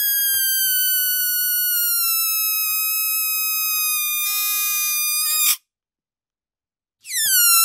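Air escaping through the stretched neck of a deflating balloon, making a high whistle that slowly sinks in pitch, turns briefly buzzy, then squeals upward and cuts off about five and a half seconds in. After a short silence a second whistle starts near the end, dropping quickly in pitch and then holding.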